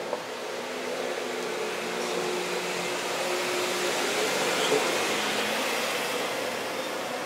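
Steady mechanical rushing noise with a faint low hum, growing a little louder through the middle and easing off near the end.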